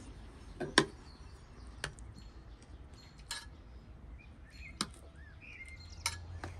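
About five sharp clinks of serving tongs and cutlery against ceramic plates as food is dished out, the loudest just under a second in. Birds chirp faintly in the background.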